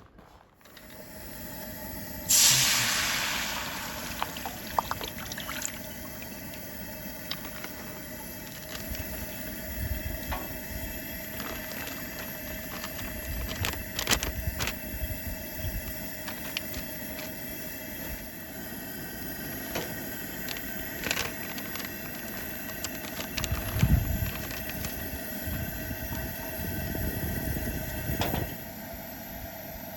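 A sudden loud hiss starts about two seconds in and fades away over a few seconds. A steady softer hiss follows, with scattered small clicks.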